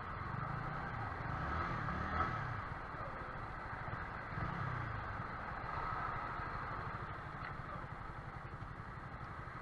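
Yamaha YZF-R15's single-cylinder engine running under way, its pitch rising and falling a few times in the first five seconds, over a steady rush of wind and road noise.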